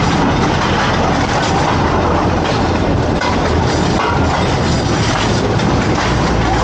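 A small motorised rail vehicle running along the track: a steady engine hum under the continuous rumble and rattle of wheels on rails.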